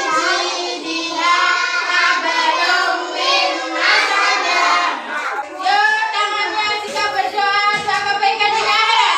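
Group of young children singing together.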